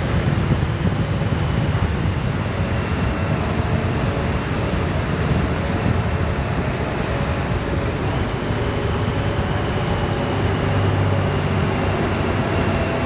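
Honda Gold Wing's flat-six engine running at steady cruising speed inside a road tunnel, under steady wind rush over the microphone and tyre noise.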